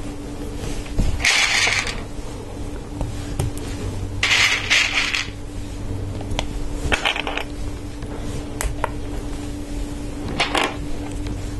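Plastic LEGO Technic parts clattering and clicking as they are handled and pressed together: four short rattles, with a few single sharp clicks between them.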